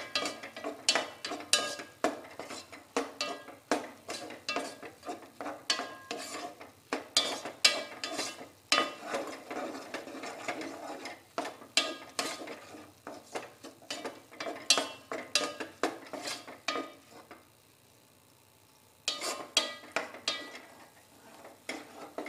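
A spoon scraping and clicking against a nonstick pot as diced apple is stirred in ghee, in quick repeated strokes. The stirring pauses for nearly two seconds near the end, then resumes.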